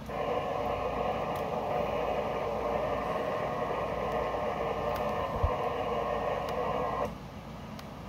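Steady rushing static from a Yaesu FT-991A transceiver's speaker, cutting out about seven seconds in. A single sharp knock sounds about five and a half seconds in.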